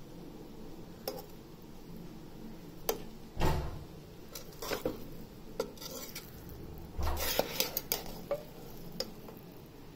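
Metal spoon clinking and scraping against a cooking pot while stirring cooked chicken biryani rice, in scattered knocks. The loudest knock, with a dull thud, comes about three and a half seconds in, and a quick run of clatters follows around seven seconds.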